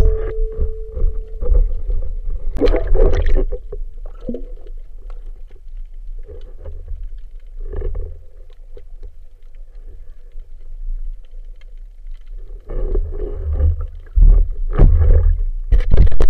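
Underwater spearfishing sounds: a steady ringing tone left over from the speargun shot dies away within the first second and a half. Then come scattered knocks and scrapes as the speared seabream is handled on the shaft. Loud bubbling and sloshing follow near the end as the diver surfaces.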